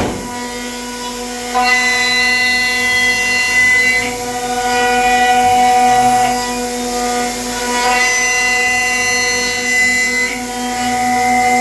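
CNC router spindles running at high speed while milling a walnut gun stock: a steady, high-pitched whine whose pitch and loudness shift several times as the cutters move into and out of the wood.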